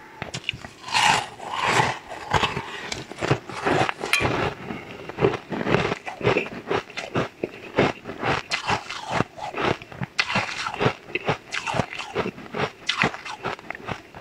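Crunching and chewing of a chunk of ice, close to a clip-on microphone: dense, irregular cracks and crunches.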